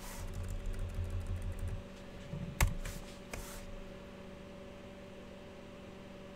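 A few computer keyboard keystrokes and clicks, the sharpest about two and a half seconds in, over a faint steady hum.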